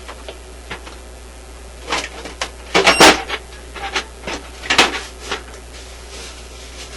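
Rummaging through tools and supplies on a workbench: scattered clicks and knocks of small objects being moved and set down, with the loudest clatter about three seconds in and another burst of handling near five seconds.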